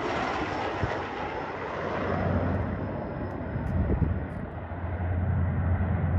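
Airliner engine noise as the aircraft moves away, a steady rumble that keeps its low drone while the high hiss gradually fades.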